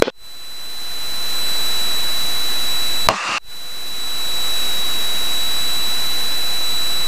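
Steady hiss of Cessna 172 cockpit noise over the intercom audio feed, with a thin steady high whine. It cuts out abruptly twice, at the start and about three seconds in, with a short click at the second cut, and each time swells back over a second or so.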